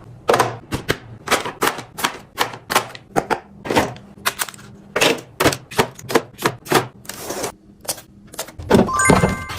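A clatter of sharp clicks and knocks, a few a second and irregular, from containers and items being handled, set down and lids snapped while restocking. Near the end a few short ringing clinks sound, like glass or hard plastic knocking together.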